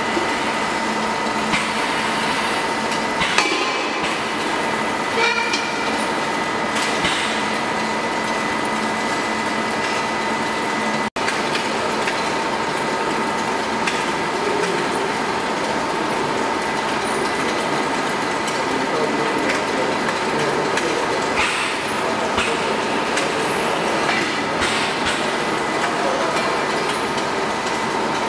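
Machinery of an automated LPG cylinder welding line running: a steady factory hum with a few fixed whining tones and a handful of short bursts of noise. The sound drops out for an instant about eleven seconds in.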